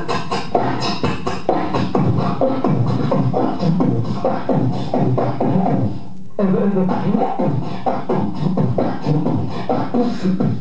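Beatboxing into a handheld microphone: a fast, unbroken rhythm of mouth-made drum sounds, with a brief break about six seconds in.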